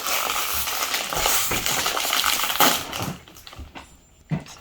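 Crinkling and crackling of a plastic potato chip bag being handled and pulled open, dense for about three seconds and then dying down.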